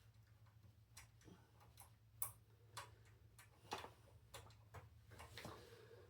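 Faint, irregular small metal clicks of a lock pick and tension wrench being worked into a filing-cabinet lock's keyway, a tick every half second to a second or so.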